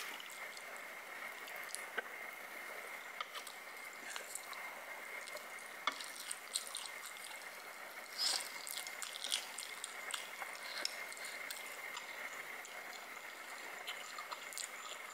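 Close-up wet mouth sounds of a person chewing and slurping sauced instant noodles, with small clicks and squelches, a busier burst about eight seconds in, and a faint steady high whine underneath.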